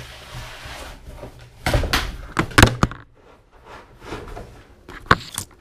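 Cardboard shipping box being handled, first with a scraping rustle, then a quick run of knocks and thuds about two seconds in as the camera is knocked over, and one more knock near the end.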